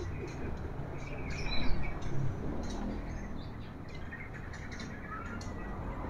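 White-rumped shamas (murai batu) chirping and giving short calls from their shipping crates, many brief chirps with a few whistled notes, over a steady room hum. A couple of louder knocks come about two seconds in.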